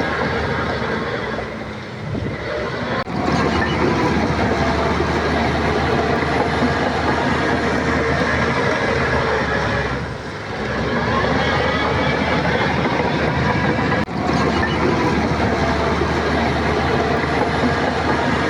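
Shantui crawler bulldozer working: its diesel engine running under load while the steel tracks clank and rattle. The engine eases off briefly twice, about two and ten seconds in.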